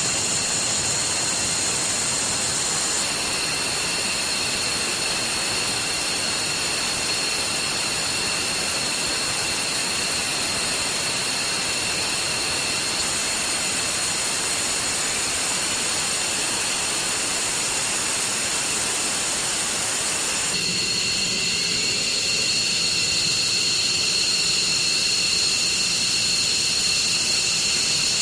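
Fighter jet engines running, a steady roar topped by a high whine: an F-22 Raptor at take-off, then twin-engine F-15E Strike Eagles taxiing. The sound changes abruptly twice, a few seconds in and about two-thirds of the way through. After the second change the rumble falls away and mostly the high turbine whine is left.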